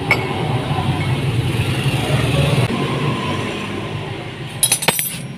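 Metal clinks from motorcycle engine parts and tools being handled while the starter gear comes off the crankshaft: one click at the start and a quick run of clinks near the end, over a steady low rumble.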